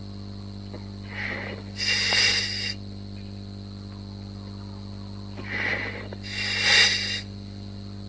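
An underwater diver breathing: two breaths, each a short softer draw followed by a louder rush about a second long, over a steady electrical hum.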